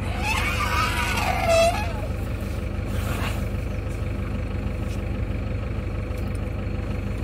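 An Asian elephant gives a short, rough trumpeting call lasting under two seconds, over the steady low running of a safari jeep's idling engine.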